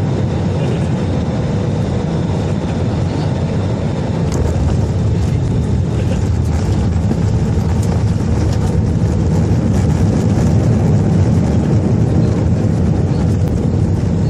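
Steady roar of an Airbus A320-214 airliner heard inside the passenger cabin: its CFM56 jet engines and the rush of air, with a faint steady hum running through it. The roar grows a little louder about four seconds in, with light rattling in the cabin.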